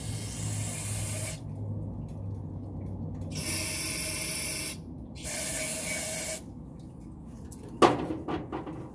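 Aerosol can of carburetor cleaner sprayed in three bursts of about a second each, priming a non-running engine to get it to fire. Near the end comes a sharp knock with a short ring, the loudest sound.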